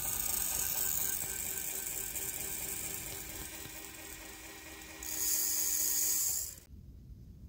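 Electronic powder dispenser's motor whirring steadily as it trickles a charge of rifle powder into its pan. Near the end, a louder hissing rush as the powder is poured through a funnel into a brass case, stopping suddenly about six and a half seconds in.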